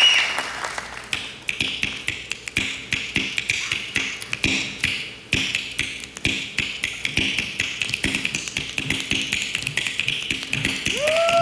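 A professional snappist's fingers snapping rapidly and rhythmically into a microphone, a fast, drum-like run of sharp snaps, with applause dying away at the start.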